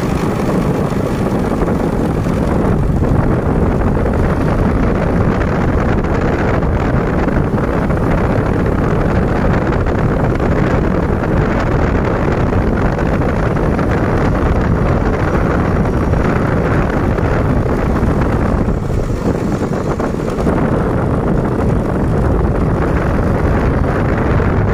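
Steady wind buffeting the microphone mixed with the running and road noise of a vehicle on the move, easing briefly about nineteen seconds in.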